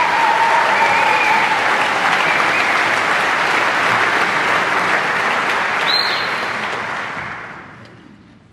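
Audience applauding, dying away over the last second and a half.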